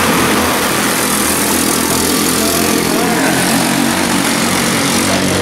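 A pack of quarter midget race cars racing past, their small single-cylinder four-stroke engines running hard in a steady, loud drone.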